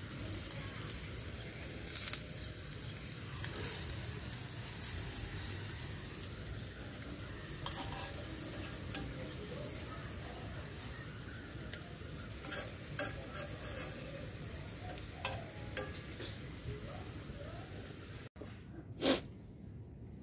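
Pieces of bread frying in a stainless steel frying pan, sizzling steadily, with the clink and scrape of a metal spoon turning them every few seconds. Near the end the sizzle cuts off and a single knock follows.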